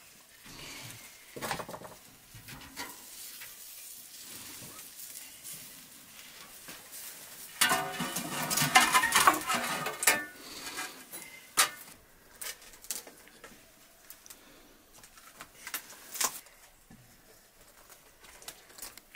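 Metal cookware being handled: a metal pan and trays clattering and scraping. The busiest, loudest clatter comes about eight to ten seconds in, as a roasted whole turkey is set on a metal tray. Scattered clicks and knocks follow.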